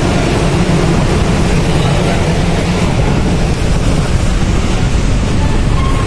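Loud, steady low rumble on the open deck of a car ferry: the ship's engine rumble mixed with wind buffeting the microphone.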